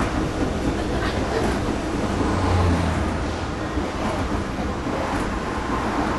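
Passenger train running, heard from inside the carriage: a steady rumble of wheels on track. A deeper hum swells briefly about halfway through.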